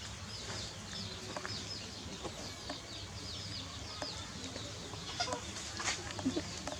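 Birds peeping: a steady run of short, high-pitched falling chirps, several a second, with a few light knocks among them.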